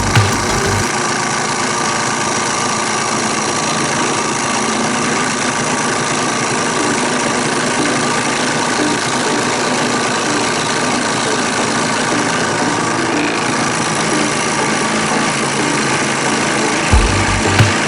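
Drill press running steadily with a trim-router bit spinning in its chuck: a constant motor hum with several steady tones above it.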